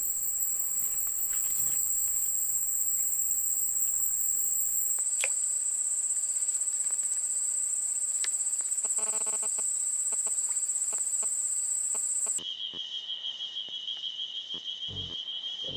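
Insects trilling steadily at a high pitch. About twelve seconds in, the trill switches abruptly to a lower-pitched pulsing trill.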